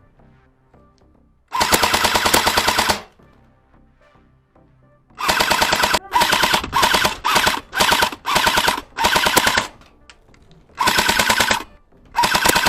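Airsoft light machine gun firing full-auto in repeated bursts: one longer burst, then a string of short bursts, then two more near the end. Each burst is a fast rattle of shots over a steady whine.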